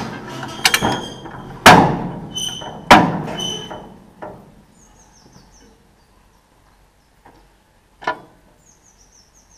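Two loud metallic clanks with a ringing after them, about two and three seconds in, from the Welger AP41 small square baler being worked by hand. Quieter knocks follow, and a small bird chirps twice in short falling runs in the background.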